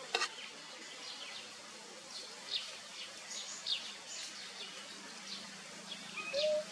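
Birds chirping: many short, falling chirps scattered over a steady outdoor hiss. About six seconds in there is a short, low, even-pitched call, the loudest sound here.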